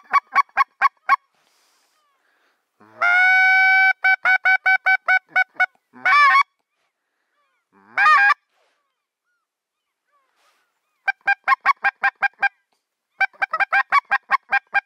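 Geese honking in quick runs of short, evenly spaced calls, about six a second, with one long, drawn-out honk about three seconds in and brief gaps between the runs.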